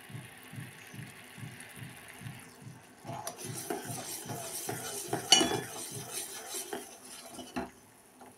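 A spoon stirring sugar syrup in a steel pot, scraping and clinking against the sides, with one sharp clink about five seconds in; the syrup is nearly cooked to one-thread consistency. A low pulsing about two and a half times a second runs under the first half.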